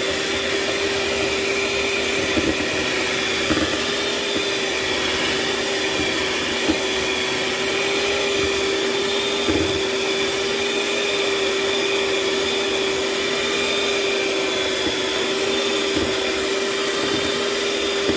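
LILPARTNER 450 W electric hand mixer running at a steady speed, its motor whining at one unchanging pitch as the beaters work through a thick, creamy mixture in a bowl. A few light knocks sound now and then.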